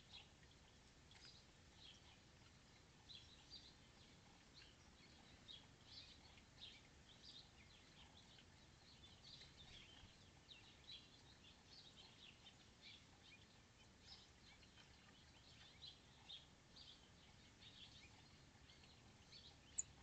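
Faint, frequent short high chirps of small songbirds calling, scattered throughout, with one brief sharp high note shortly before the end.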